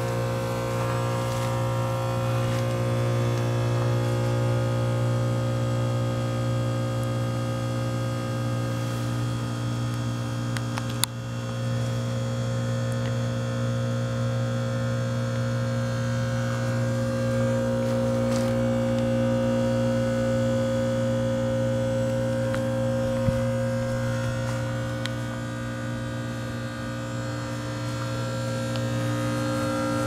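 1996 American Standard heat pump outdoor unit running in its defrost cycle: a steady low hum with several held tones above it, and two brief clicks, one about a third of the way in and one about three quarters of the way in.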